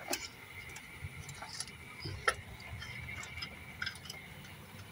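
Scattered small clicks and ticks of hand-worked engine parts and fittings in a car's engine bay, with one sharper click about two seconds in.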